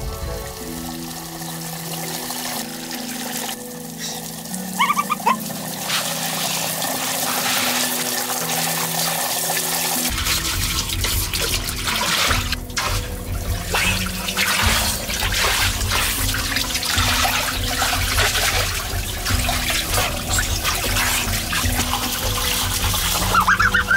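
Steady running and splashing water under background music, the music's low end growing heavier about ten seconds in. A few short chirps come about five seconds in and near the end.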